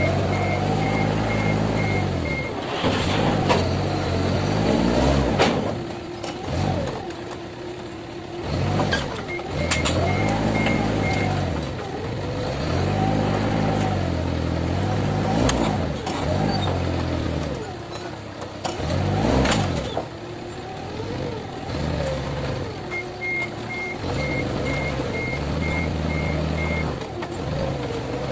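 Forklift engine revving up and falling back again and again as the operator works the clamp and mast hydraulics. The reversing alarm beeps about twice a second in three stretches: at the start, around ten seconds in, and near the end. A few sharp knocks sound now and then.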